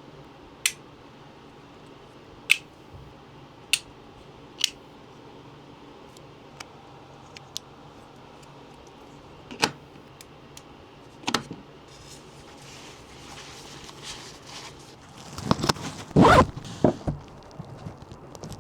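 Small plastic parts of a wireless microphone kit being handled: six sharp clicks spread over the first twelve seconds, then a louder spell of scraping and rasping handling noise near the end.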